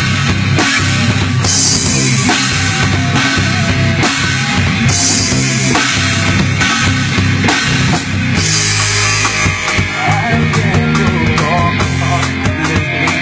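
Rock band playing: a drum kit with cymbal crashes coming back every few seconds, over electric guitars and bass, in an instrumental stretch of the song.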